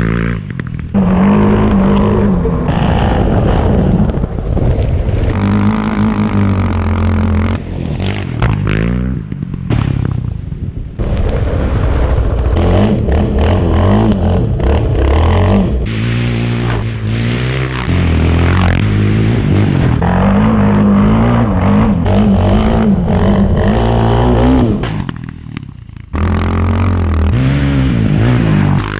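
Quad bike (ATV) engines revving and accelerating hard off-road, pitch rising and falling with the throttle. The sound jumps abruptly every few seconds from one riding shot to the next.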